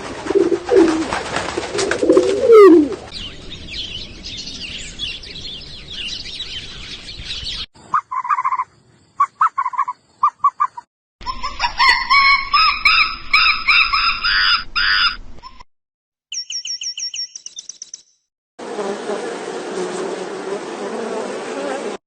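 A run of separate wild-animal sound clips cut one after another, mostly bird chirps and calls: short repeated chirps, a busy song of quick rising and falling notes, and a fast high trill, each broken off abruptly by a gap of silence.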